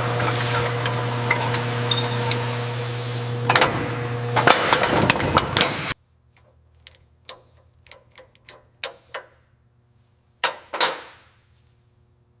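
Workshop tool sounds: a motor-driven tool runs with a steady hum and hiss, with a few sharp knocks. About six seconds in the sound cuts off abruptly and gives way to scattered hammer-like taps and knocks, one of them ringing on briefly.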